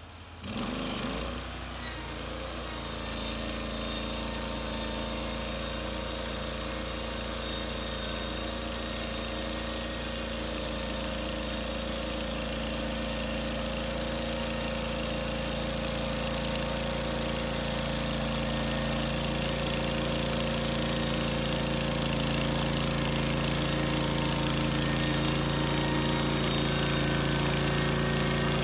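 Portable bandsaw mill (Norwood LumberPro HD36 V2) running under load, its gas engine driving the band blade through a log. The sound surges suddenly about half a second in, then runs steadily and grows slowly louder.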